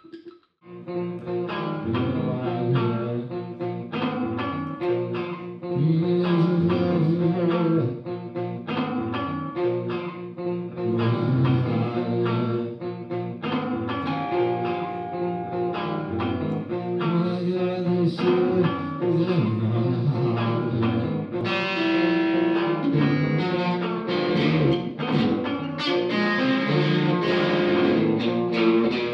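Telecaster-style electric guitar played through effects pedals in a live experimental set: choppy plucked notes and chords start about half a second in and carry on without a break. A man's voice joins in the second half.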